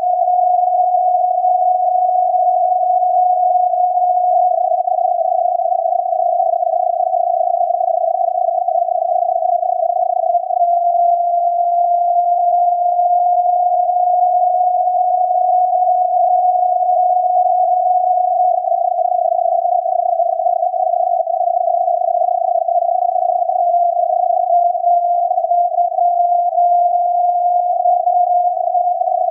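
The unkeyed carrier of SAQ, the Grimeton Alexanderson alternator transmitter on 17.2 kHz, received on a software-defined radio and heard as a steady whistle near 700 Hz inside a narrow band of hiss. The whistle wavers slightly in pitch as the receiver is fine-tuned, before the Morse keying starts.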